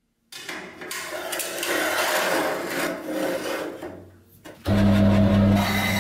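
Steel flat bar scraping and sliding against the cast-iron vise and bed of a metal band saw as it is pushed into place. About four and a half seconds in, a steady, louder hum starts suddenly.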